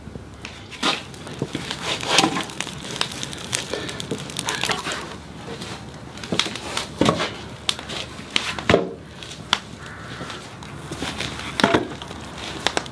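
Wooden logs knocking and clattering against each other and the brick as the firebox of a wood-fired brick and tile kiln is stoked, in irregular sharp knocks, the loudest about two and nine seconds in.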